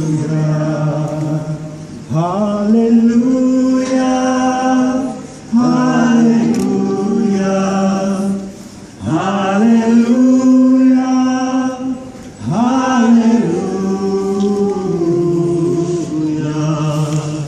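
A group of voices, men's voices prominent, singing a slow hymn together. The singing goes in long held notes, in phrases that each begin with a short upward slide, with brief breaths between them every three or four seconds.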